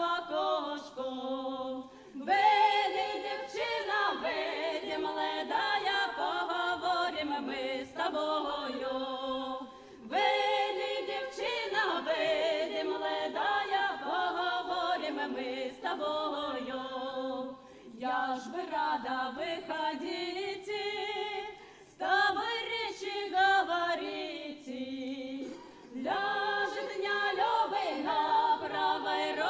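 A folk choir of women's and men's voices singing a cappella, in long phrases with short breaks between them.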